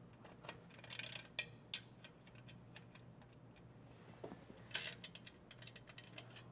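A wrench clicking faintly in short bursts as a finger weeder's clamp bolt on the cultivator toolbar is worked and tightened down. There is a cluster of clicks about a second in and more clicks near the end.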